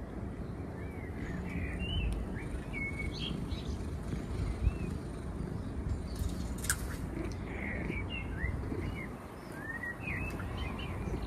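Small birds chirping and twittering: many short, quick chirps scattered throughout, over a steady low background rumble, with one sharp click about two-thirds of the way through.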